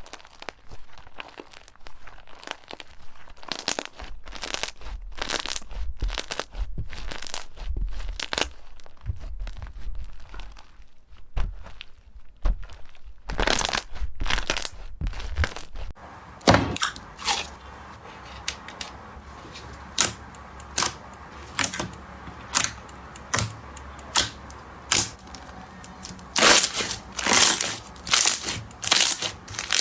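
Crunchy slime being squeezed and pressed by hand, crackling and crunching; about halfway through it changes to separate sharp pops, one or two a second, loudest near the end.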